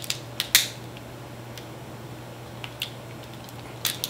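Scattered sharp clicks and snaps of someone eating king crab legs, the loudest about half a second in, over a steady low hum.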